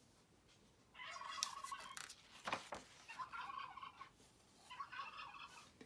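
Turkey gobbling three times, each a short rattling call, with a brief click about halfway through.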